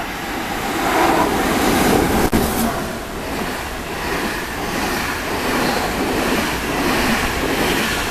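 Passenger train running through the station at speed: a steady rushing rumble of wheels on rail that swells about a second in as the head of the train reaches the platform, then carries on as the coaches stream past.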